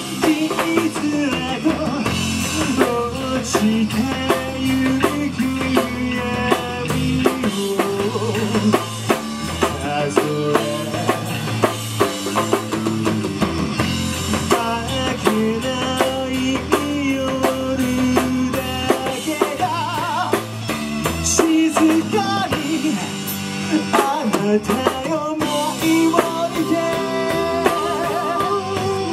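Live rock band performance: a male lead singer sings into a microphone over drum kit, electric guitar and bass guitar, amplified through a PA.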